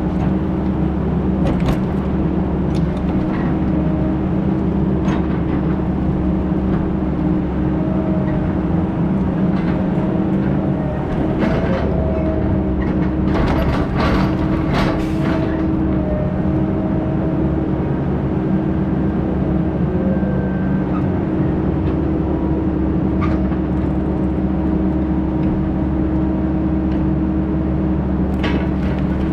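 Heavy diesel engine running steadily, a constant drone with scattered clattering knocks, thickest about halfway through and again near the end.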